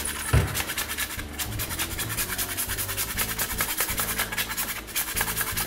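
Parmesan cheese grated on a hand grater over a bowl of pasta: a dry rasping, scraped in quick, even strokes.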